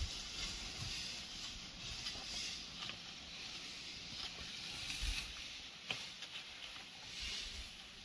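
Quiet open-air background: a faint steady hiss, with a soft click about six seconds in.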